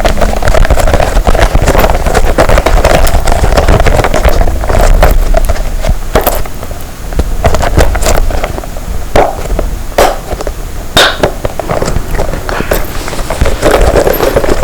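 Close-miked fidget toy being handled, with a steady scratchy rubbing and many sharp clicks and taps scattered through it.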